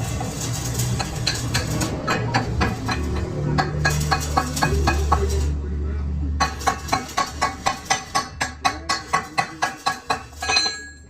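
Steel being struck repeatedly with a hammer, each blow ringing. The blows are irregular at first, then settle into an even run of about three a second that stops near the end. A steady low hum runs underneath.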